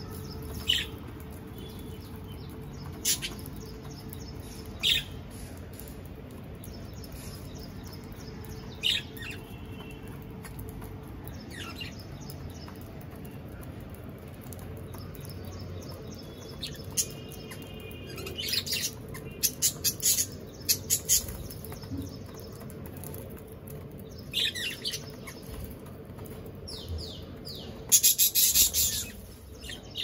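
Budgerigars chirping in short, scattered calls, with a quick run of chirps about two-thirds of the way through. About two seconds before the end comes a louder, dense burst of wing flapping as the birds fly off the cage.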